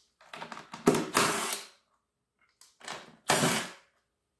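Power driver with a 10 mm socket spinning off the nuts that hold a Powermore 140cc mower engine's recoil starter, running in two short bursts.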